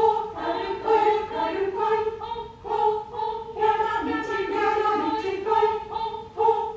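Mixed choir, mostly women's voices, singing with a grand piano accompanying in a steady pulse of repeated notes.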